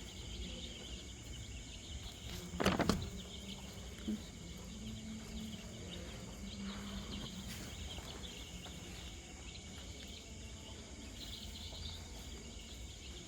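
Steady background hiss with many small, high peeps from a pen of five-day-old chicks, and one brief loud bump about three seconds in.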